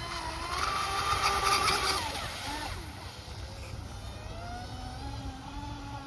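Fast electric RC boat making a high-pitched motor whine. It rises in pitch and loudness as the boat comes close, is loudest with a hiss of spray for about a second and a half, drops in pitch as it passes, then goes on as a fainter steady whine out on the water.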